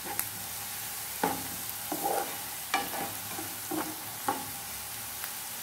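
Chopped onion, ginger, garlic and curry leaves sizzling in oil in a nonstick frying pan, stirred with a spatula: a steady sizzle with a scrape or knock of the spatula against the pan about once a second.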